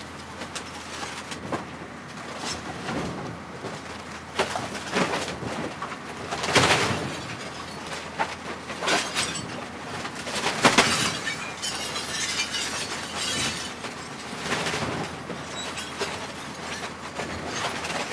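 Garbage compactor crushing trash: an irregular run of crunches, cracks and breaking glass, loudest about six and ten seconds in.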